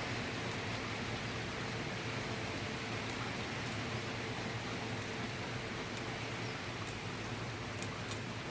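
Steady hissing noise, like rain or a fan, over a low hum, with a few faint clicks near the end.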